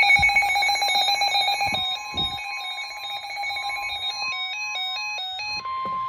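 Weather radio alert: an electronic alarm buzzing rapidly, joined about two seconds in by the steady 1050 Hz NOAA Weather Radio warning alarm tone. A stepping pattern of beeps at changing pitches comes and goes a few seconds in, leaving the steady warning tone alone near the end.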